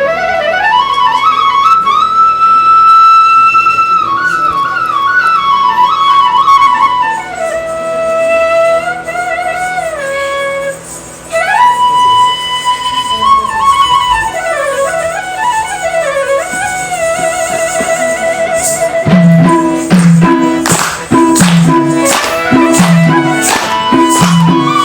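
Folk-song instrumental interlude: a flute plays a sliding, ornamented melody with long held notes. About nineteen seconds in, percussion joins with a steady beat.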